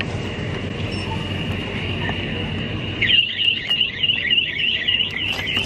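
A high-pitched electronic alarm tone, steady at first, then warbling rapidly at about four wiggles a second from about three seconds in.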